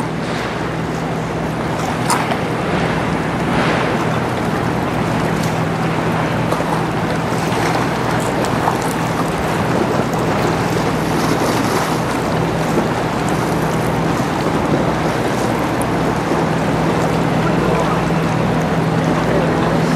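A general cargo ship passing close by: a low steady drone from the ship over the wash of waves, with wind buffeting the microphone. The drone fades for a few seconds in the second half and then returns.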